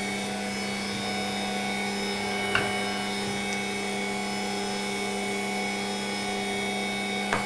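Bosch stand mixer's motor running steadily as its attachment stirs batter in the bowl, a constant hum, with two brief knocks, one about two and a half seconds in and one near the end.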